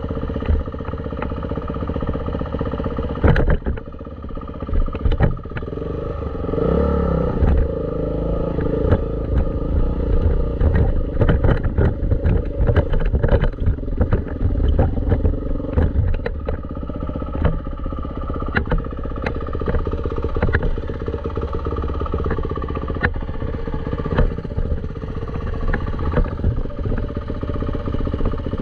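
Dirt bike engine running steadily while being ridden, with frequent sharp knocks and clatter over it. The engine pitch wavers briefly about seven seconds in.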